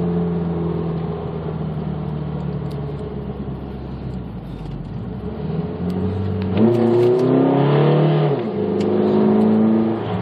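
2006 Mitsubishi Eclipse GS four-cylinder engine pulling at about half throttle, with the number 4 cylinder misfiring from a vacuum leak at a missing fuel injector insulator. About six seconds in it gets louder and the revs climb for about two seconds, then drop at a gear change and pull on steadily.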